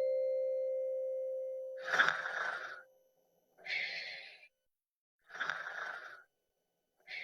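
A sustained piano note fades away, then four short hissing bursts, each under a second, come about a second and a half apart with silence between them.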